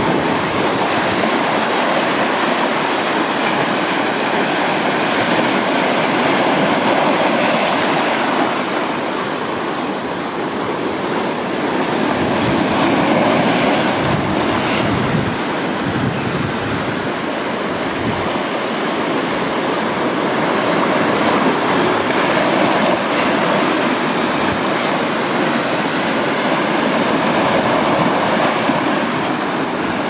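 Sea surf washing in over shoreline boulders: a steady rush of breaking waves that swells and eases.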